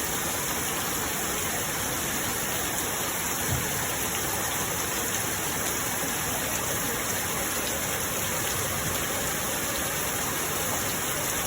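Steady rain falling, an even hiss with no let-up, and a single soft low thump about three and a half seconds in.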